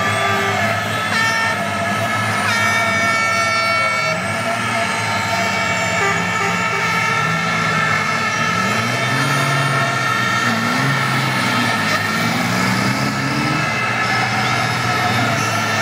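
A MAN race truck's diesel engine revving up and down as the truck spins in place on the tarmac. Several steady high-pitched tones sound above it.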